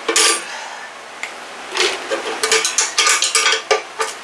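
A steel hand wrench clinking and scraping against the mounting bolts of an air compressor's electric motor as the bolts are worked loose by hand. One sharp clink at the start, then a run of quick metallic clinks from about two seconds in.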